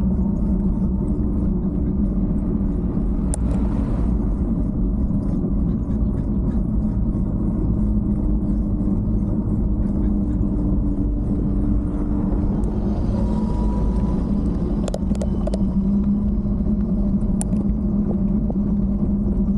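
Steady low rumble and hum of a bike ride at cruising speed, heard on the bike-mounted camera, with a few faint ticks.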